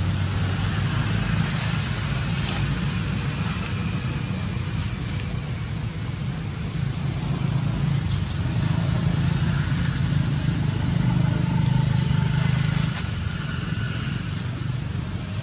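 Steady low rumble with a hiss above it, swelling a little past the middle, with a few faint rustles.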